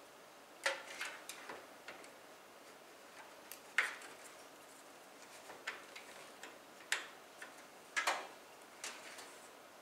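Irregular light clicks and taps of plastic PC power-cable connectors and cables being handled and pushed into a motherboard socket.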